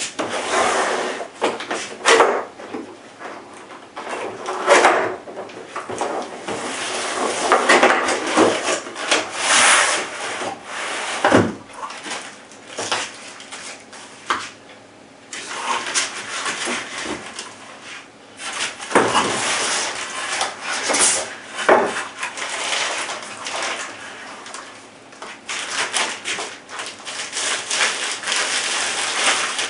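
Cardboard and plastic packaging being handled as an air rifle is lifted out of its box: bursts of rustling and scraping with occasional knocks and bumps.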